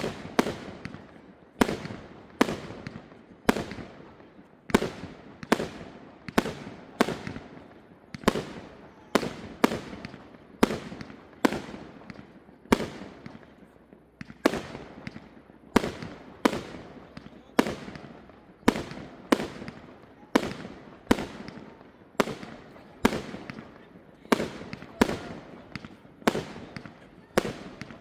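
Fireworks display: a steady, evenly spaced run of aerial shell bursts, a sharp bang roughly every two-thirds of a second, each dying away before the next.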